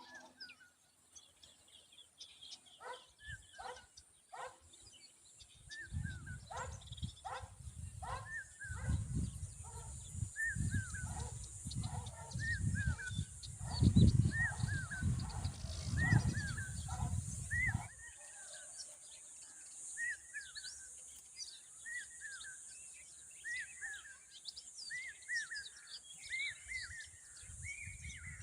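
Common babbler giving a steady series of short, sharp chirping calls, one or two a second: the agitated calling of an adult guarding its young. A low rumbling noise runs under the middle part, loudest about halfway, and stops abruptly about two-thirds in.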